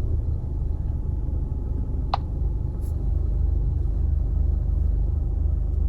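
Honda Accord engine idling steadily, running on a newly programmed key after a crank-but-no-start key programming problem. One brief click sounds about two seconds in.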